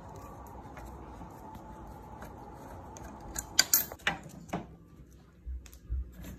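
Metal clinks and clicks from tools and parts being worked on a pit bike's frame: a quiet stretch, then a handful of sharp metallic clicks between about three and four and a half seconds in, and a couple of dull knocks near the end.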